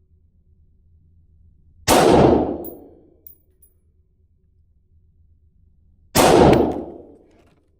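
Two AR rifle shots about four seconds apart, each a sharp report that rings away over about a second.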